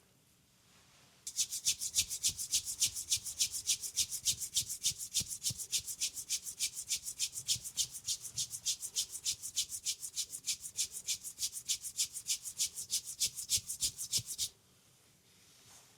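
Hands rubbing briskly back and forth over skin in a fast, even massage stroke, about five strokes a second. It starts about a second in and stops sharply a little before the end.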